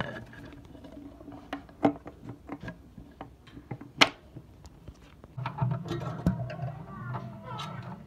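Sharp knocks and clicks from a wooden parrot nest box being handled and opened, the loudest right at the start and about four seconds in. In the last couple of seconds a wavering pitched call or voice sounds over a low hum.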